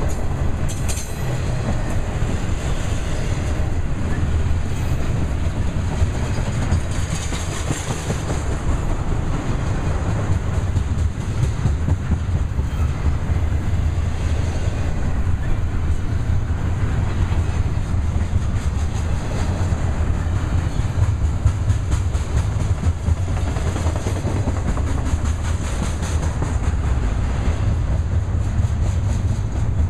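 Double-stack intermodal container well cars rolling past: a steady low rumble of steel wheels on rail with a rapid clicking of wheels over the rail joints.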